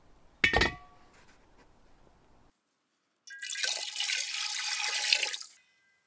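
A short clank with a brief ring about half a second in, then water poured into a black iron cauldron, splashing for about two seconds.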